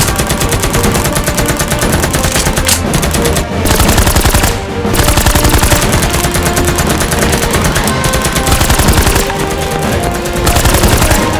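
Rapid, near-continuous automatic gunfire sound effects, with a few brief breaks, standing in for motorized Nerf blasters firing darts. Background music plays underneath.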